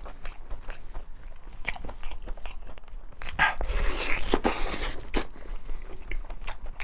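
A person chewing and crunching food close to the microphone, with many small wet clicks and a louder stretch of crunching about three and a half seconds in.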